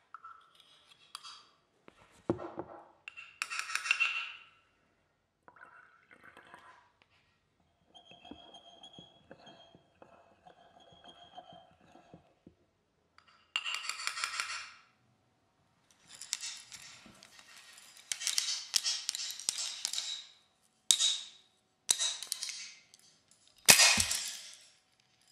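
Sound-design collage made from reproduced and processed painting sounds: separate bursts of brush strokes and scraping with glassy clinks, a thin high ringing tone through the middle, and a loud burst with a low thud near the end.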